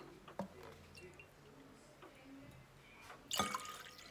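A few faint clicks of kitchen containers being handled, then a sharper knock about three and a half seconds in. Near the end, rice milk starts pouring from a glass jug into a glass mixing bowl.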